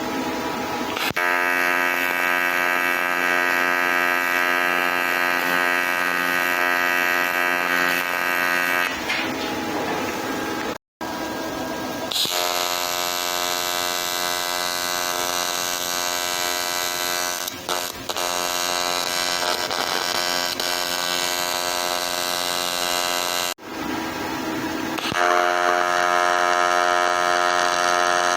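AC TIG welding arc buzzing steadily on an aluminium alloy wheel, struck in three runs of several seconds each with short breaks between.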